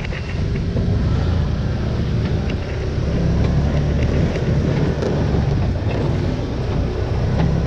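Steady low rumble of a running vehicle engine, with wind noise on the microphone.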